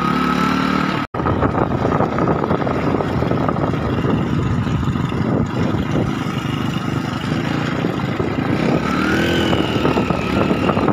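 Motorcycle engine running while the bike rides along at speed, mixed with rushing wind and road noise. The sound cuts out briefly about a second in.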